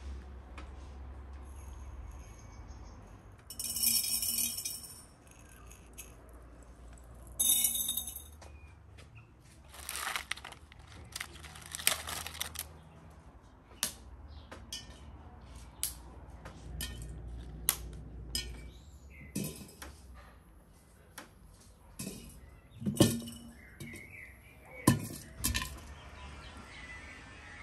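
Hand food preparation with large glass jars on a wooden table: scattered clinks and knocks of glass and a few short rustles as bay leaves, sliced onion and raw chicken pieces go into the jars.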